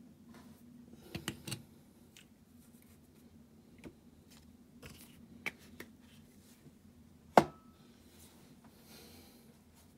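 Small clicks and taps of a die-cast toy van and tools being handled on a workbench, with one sharp metallic knock that rings briefly about seven seconds in, over a faint steady hum.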